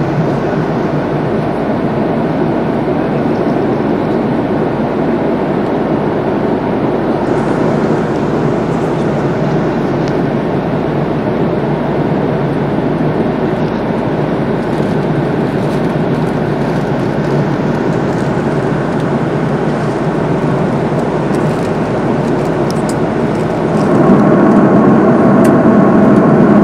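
Steady roar of engine and airflow noise inside an Airbus A330 passenger cabin in flight. It gets louder near the end.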